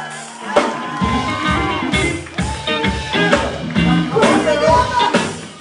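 Live church band playing upbeat music with a steady drum-kit beat and guitar, with a singer's voice over it.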